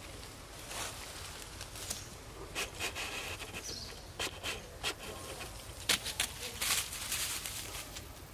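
Outdoor forest ambience with a faint insect hum, broken by scattered short rustles and scuffs, thickest about halfway through and again near the end.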